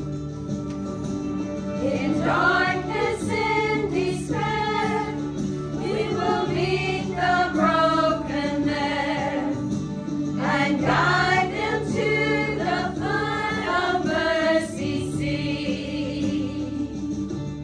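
Church choir singing gospel-style Christian music over instrumental accompaniment, with held low notes under the moving voices.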